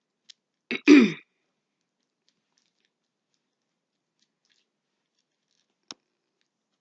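A single short human vocal sound, falling in pitch, about a second in, such as a grunt or sigh; otherwise silence, with a faint click near the end.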